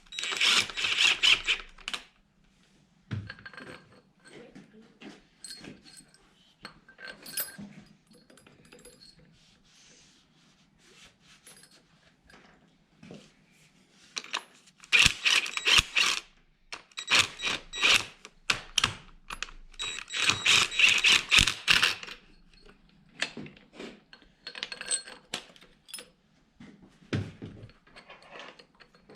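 Metal bolts and hand tools clinking and rattling in several bursts of quick clicks lasting a second or two each, with scattered single clinks between.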